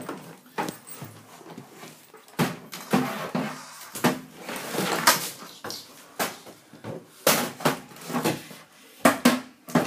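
A series of irregular knocks and bumps, some in quick clusters, with short gaps between them.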